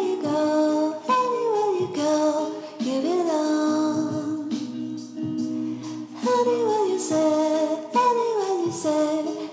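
Background music: a high melodic line sliding between notes in short phrases over steady held accompaniment tones.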